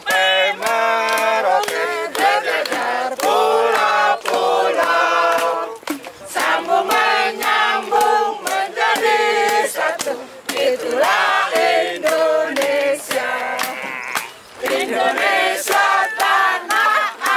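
A group of voices singing a song together, the notes held and stepping in pitch, with a regular beat of sharp hits.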